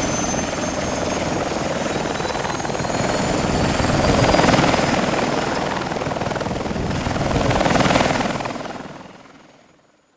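Helicopter rotor and engine noise, swelling louder twice over a faint high whine, then fading out near the end.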